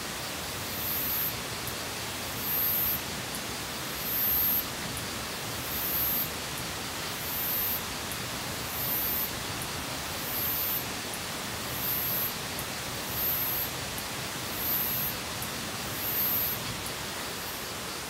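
Steady hiss of rain falling around the campsite. Over it, a short high-pitched chirp repeats about every one and a half seconds.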